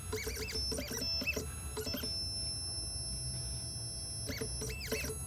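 Xhorse Condor Dolphin XP005 key cutting machine running its automatic clamp calibration: its motors whine in short rising-and-falling sweeps as the carriage moves, with a steady high tone between moves.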